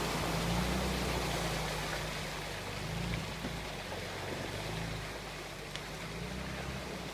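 UAZ off-road vehicle's engine running at low revs, a steady low hum that slowly fades.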